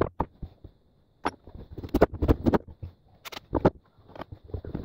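Hammer tapping on a wooden panel to knock it into place: irregular knocks in small clusters with short pauses between them.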